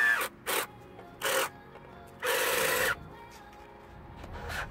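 Cordless drill, running on a 4S pack of salvaged 18650 lithium-ion cells, driving wood screws into laminated MDF in short trigger bursts, the longest about two seconds in.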